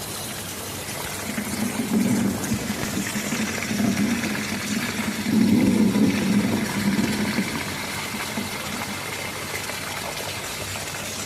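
Steady rain, with a low rumble of thunder rolling in about two seconds in, loudest around the middle and fading away.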